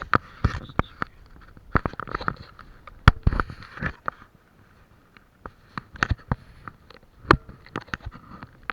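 Handling noise from a camera being repositioned close to the microphone: irregular knocks, clicks and scrapes, the loudest at the start and about three and seven seconds in.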